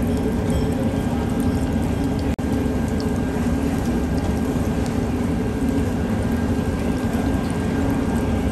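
Steady low rumbling kitchen noise with a faint hum over it; it drops out for an instant about two and a half seconds in.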